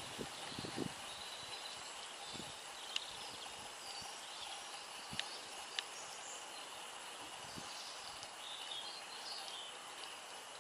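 Outdoor ambience: a steady hiss with faint bird chirps, and a few sharp clicks about three seconds and about five seconds in.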